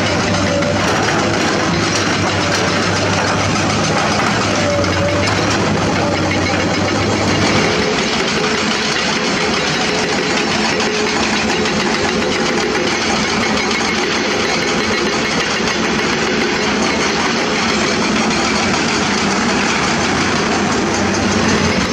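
Diesel engines of crawler excavators running steadily as they dig limestone rock. The strong low engine drone drops away about seven seconds in, leaving a lighter, more distant machinery sound.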